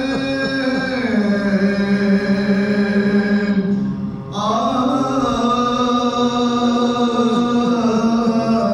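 Soz, an unaccompanied Urdu mourning elegy, chanted by men's voices together in long held notes. The line steps down in pitch about a second in, breaks off briefly about four seconds in, then comes back in.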